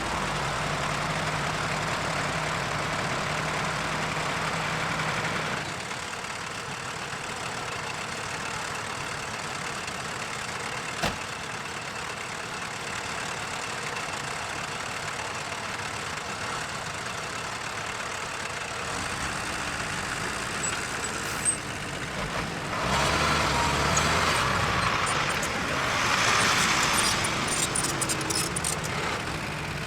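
Diesel engine of heavy earthmoving machinery running, with a steady low hum for the first five seconds. From about two-thirds of the way through it gets louder, with clattering and rattling as the machine works.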